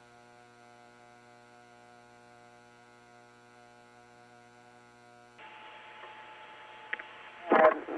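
Faint, steady electrical hum made of several even tones on the space-to-ground radio audio. About five seconds in, it gives way to a soft radio-channel hiss with a single click, just before a voice comes in.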